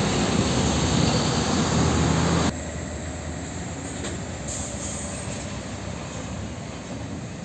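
A diesel truck passing close by with a loud, deep engine rumble. About two and a half seconds in, the sound cuts abruptly to a quieter scene of a Hino truck rolling slowly forward in light traffic.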